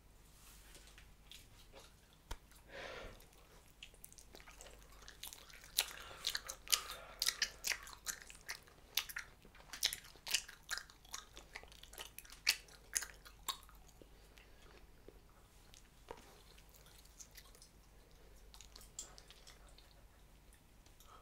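Bubble gum chewed close to the microphone: wet smacking and sharp clicks of the mouth, thickest and loudest through the middle, thinning out near the end.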